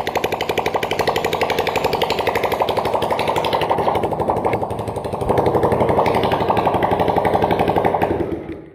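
Honda ML 125's single-cylinder four-stroke engine running with the exhaust removed, a deafening, rapid open-port popping. It gets louder about five seconds in, then the engine is switched off and dies away near the end.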